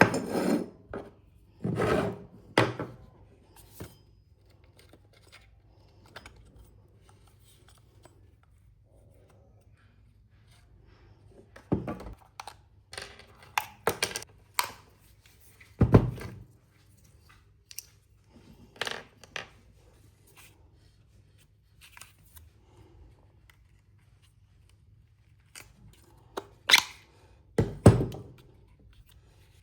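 Scattered clicks, knocks and light scrapes of hard parts being handled on a work surface, as when a hand-held angle grinder is being taken apart. They come in bunches at the start, in the middle and near the end, with quiet handling between.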